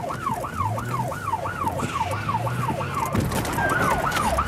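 Police car siren on a fast yelp, its pitch sweeping up and down about three times a second over the hum of an engine. The yelp breaks off briefly about three seconds in, with a single knock.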